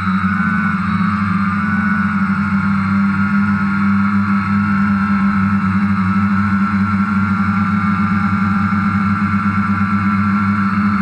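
DJI Phantom quadcopter's motors and propellers humming steadily, with a slight flutter in the loudness.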